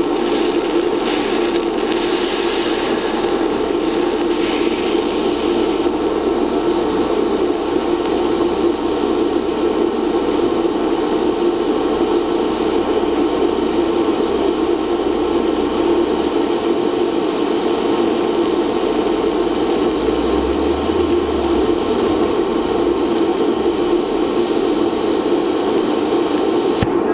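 Steady hiss and hum of a lift-start TIG welding arc on steel, held unbroken as filler rod is fed into the pool. The arc cuts off at the very end.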